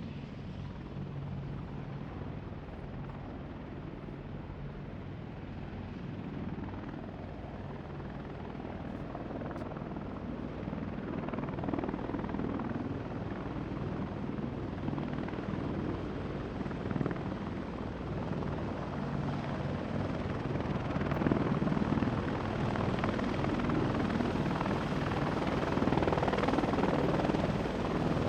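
Apache attack helicopter running, its rotor and engine giving a steady low hum under a dense churning noise. It grows steadily louder from about ten seconds in.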